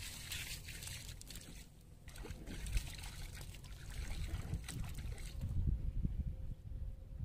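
Shallow muddy water trickling and sloshing around a mud bank, fading out about five seconds in, over a low rumble.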